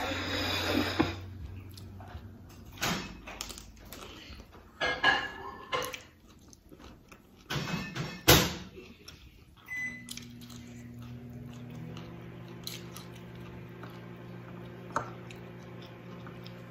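Handling noises and knocks, then a sharp clack about eight seconds in, a short beep, and a microwave oven running with a steady hum.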